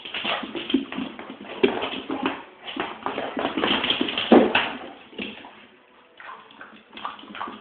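Staffordshire bull terrier scuffling about in play on a wooden floor: irregular clicks and scrabbling, with a louder thump about four seconds in.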